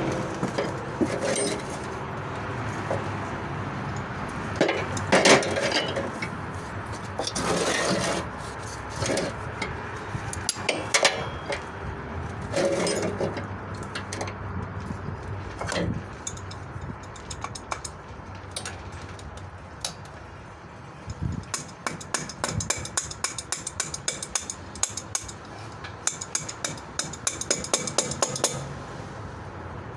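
Metal hand tools clinking, knocking and scraping against metal parts, with a long run of rapid clicks near the end.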